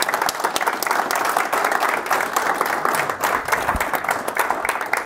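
Audience applauding: many hands clapping at once at a steady level.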